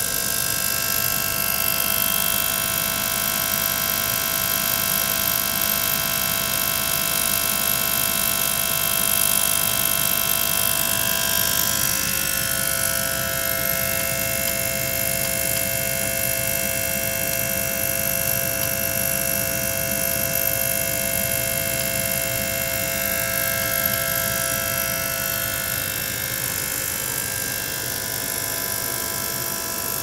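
Small liquid-circulation pump running continuously, a steady motor hum made of several held tones over a hiss. The mix of tones shifts about twelve seconds in and again around twenty-six seconds.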